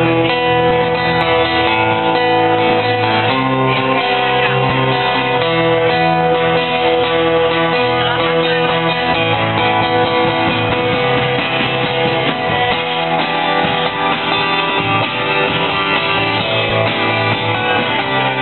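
Live band playing an instrumental passage: acoustic guitars strumming and picking together with an electric guitar, steady and loud.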